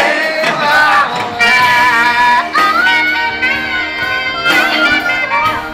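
Live band playing amplified music, a lead line of long held notes that slide between pitches over a steady accompaniment.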